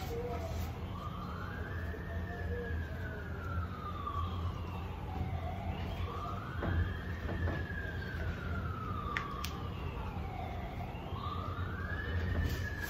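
A siren wailing in three long sweeps, each rising quickly and then falling slowly, over a steady low hum.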